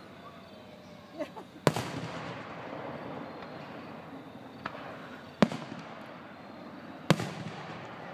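Aerial fireworks bursting: three loud bangs about two seconds apart, each followed by a long rolling echo, with a few smaller pops between them.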